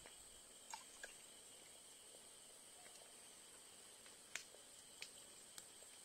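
Faint, steady high-pitched chorus of insects, with a few sharp clicks scattered through it, the loudest about four seconds in.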